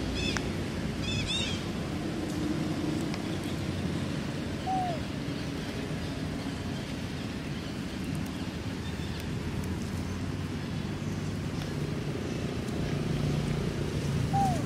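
Outdoor background ambience: a steady low rumble with a few short high chirping calls about a second in, and a brief lower call at about five seconds and again near the end.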